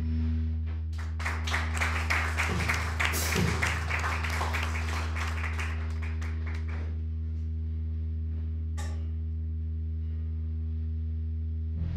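A small audience clapping for a few seconds after a song ends, over a steady low hum; the clapping dies away about halfway through and the hum carries on alone.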